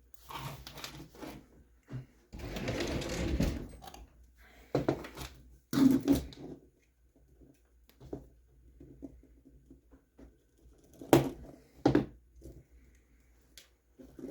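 Small plastic RC truck parts being handled and fitted together by hand: a run of irregular clicks and knocks, with a rustle lasting over a second about two seconds in.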